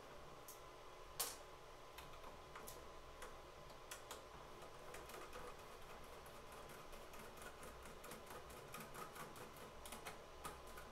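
Faint, scattered clicks and taps of 3D-printed plastic parts being handled as the chopper in a miniature Thunderbolt siren model is swapped out, with one sharper click about a second in and quicker clicking near the end.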